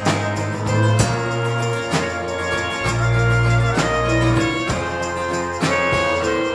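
Instrumental break of a folk ballad played by a small acoustic band, with clarinet and a strummed guitar, a new chord struck about once a second over a sustained low bass.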